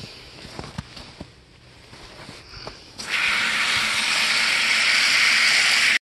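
A garden hose spray nozzle opens about three seconds in and sprays a steady hissing jet of water into a plastic bucket, rinsing out a chicken waterer. It cuts off suddenly near the end. A few faint knocks come before it.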